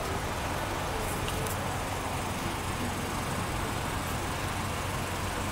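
Steady background noise with a constant low hum.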